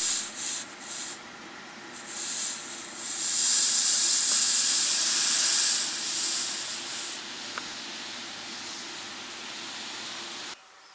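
Red-hot forged steel blade quenched in water for hardening, hissing and sizzling. The hiss comes in surges, is loudest a few seconds in, then fades to a fainter steady hiss.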